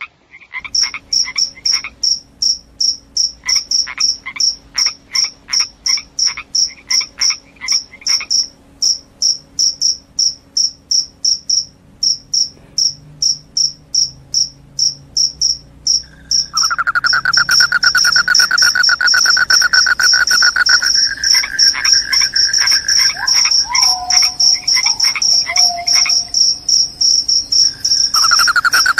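Crickets chirping in short even pulses, about three a second. About halfway through, a louder continuous trill takes over.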